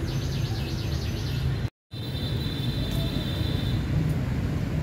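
Outdoor city ambience: a steady low rumble of traffic with birds chirping over it. The sound drops out for a moment just under two seconds in.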